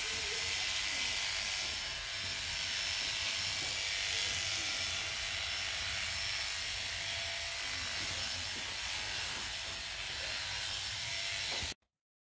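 Electric horse clippers running steadily while clipping a horse's muzzle, a constant buzzing hum that stops abruptly near the end.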